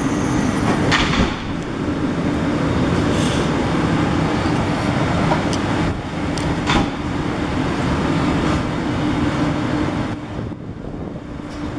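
South Western Railway Class 450 Desiro electric multiple unit pulling out of the platform, running past with a steady hum over the noise of its wheels, getting quieter in the last couple of seconds.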